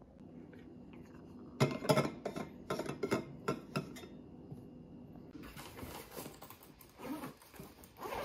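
A run of sharp plastic clicks and knocks as the lid of a travel mug is handled on a stone counter. From about halfway, a softer scratchy rustle as the zip of a fabric pencil case is pulled open.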